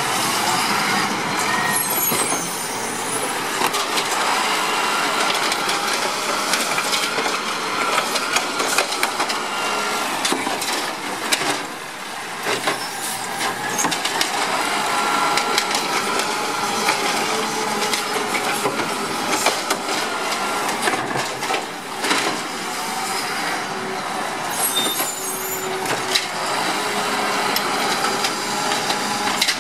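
Automated side-loader garbage truck working its lifting arm, engine and hydraulics running steadily throughout. Repeated knocks and clatter come from plastic wheeled trash carts being gripped, raised and dumped into the hopper.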